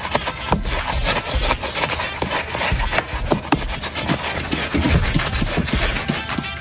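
Detail brush scrubbing foamy degreaser over engine parts and wiring: quick, irregular scratchy strokes of bristles against metal and plastic.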